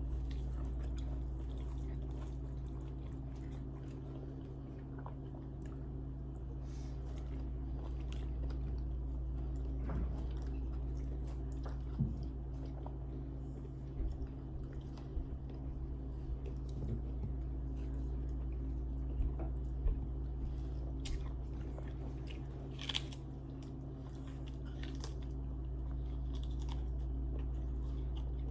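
A person eating close to the microphone: steady chewing with scattered sharp bites and crunches, over a steady low hum.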